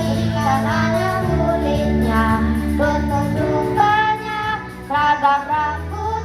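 Children's choir singing a song with instrumental accompaniment underneath.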